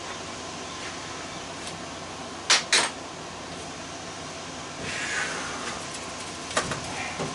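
Metal furnace parts being handled during dismantling: two sharp clanks in quick succession about two and a half seconds in, a scraping sound around five seconds, and another knock near the end, over a steady background hiss.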